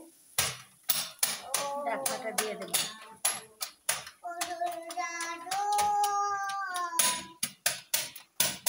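A wooden spatula stirring a pan of curry, knocking against the pan in a run of sharp clicks. Through the middle a high voice sings in the background.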